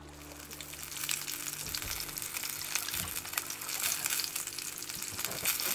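Food sizzling in a hot frying pan: a steady, dense crackle that builds about a second in.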